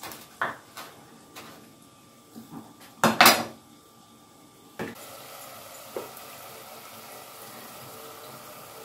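Chef's knife chopping fresh mint on a wooden cutting board: a few separate knocks and scrapes, the loudest about three seconds in. From about five seconds a steady sizzle comes from onion-tomato masala cooking in a stainless steel pot, with one light clink soon after.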